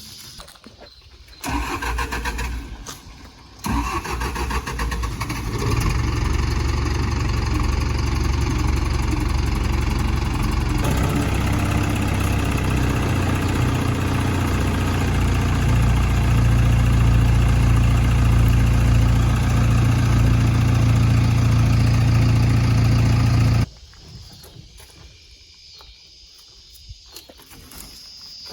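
Backhoe engine running loud and steady, picking up in speed partway through, then shut off suddenly about 24 seconds in.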